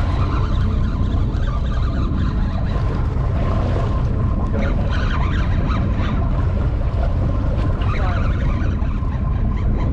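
Steady wind buffeting the microphone over a boat's engine running and sea water sloshing.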